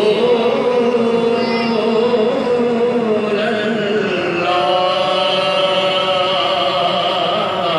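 A solo man's voice in unaccompanied Islamic devotional chanting over a microphone, drawing out long, ornamented melodic phrases that hold and bend in pitch.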